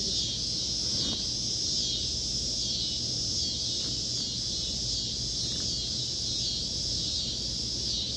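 Insects buzzing steadily, a high chorus that swells and fades in even waves a little under twice a second. A low rumble runs underneath.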